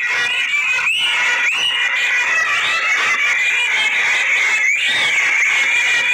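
A shrill reed wind instrument playing a continuous wavering melody, with several short upward pitch slides.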